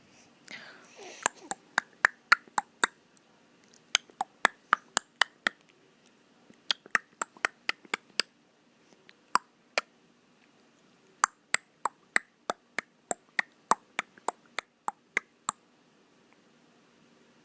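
Runs of sharp clicks made by a person, about four a second, in groups of six or seven with short pauses between, and a final longer run of about a dozen.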